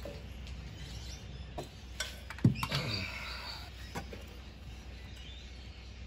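Socket and tools clicking and knocking on metal while loosening a hard-to-reach PCV valve bolt on a diesel engine, with a louder clunk about two and a half seconds in.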